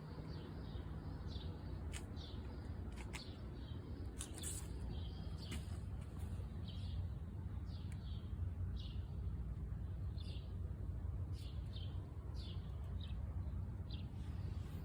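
Small birds chirping, short repeated chirps about two a second, over a steady low background rumble.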